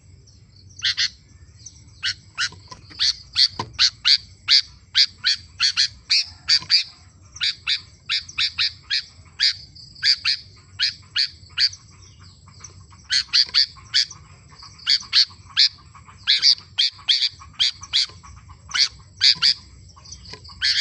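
Sooty-headed bulbul (kutilang) in full, vigorous song: quick runs of short, sharp notes, about two or three a second, broken by brief pauses.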